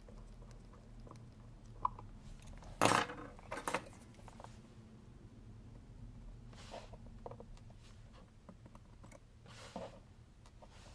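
Small metal clicks and light scraping of a watchmaker's screwdriver and tweezers on the screws and train bridge of a Seiko 62MAS watch movement, with a brief louder clatter about three seconds in.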